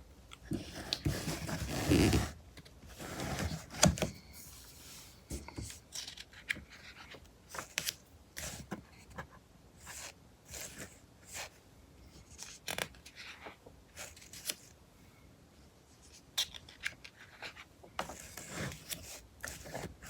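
Magazine pages being turned and handled: paper rustling and sliding, loudest in page turns in the first few seconds and again near the end, with short crinkles and taps in between.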